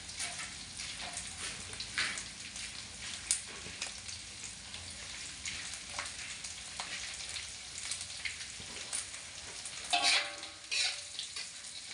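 Dried anchovies and garlic sizzling steadily in hot oil in a metal wok, with scattered pops. About ten seconds in, a metal spatula scrapes the wok as they are stirred.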